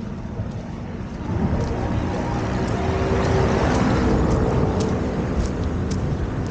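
A motor vehicle driving past, building up about a second in, loudest around the middle, then fading. Wind buffets the microphone underneath.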